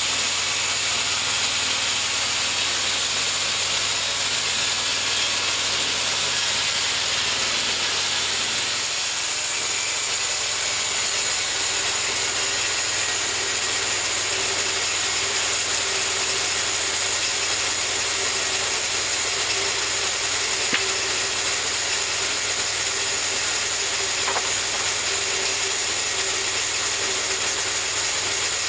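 Homemade bandsaw mill running steadily while sawing a cherry log, with a steady hum and a strong hiss. A higher steady tone joins about eleven seconds in.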